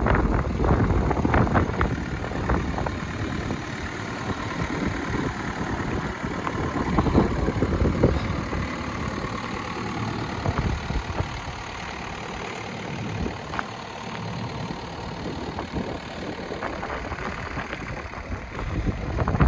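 JCB 8085 ZTS excavator's diesel engine running steadily at idle.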